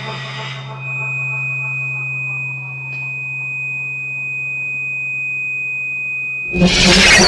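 Two steady electronic tones from a small synthesizer box, a low hum and a high pure tone that joins about a second in, sustained as the piece ends. About six and a half seconds in they cut off and applause breaks out.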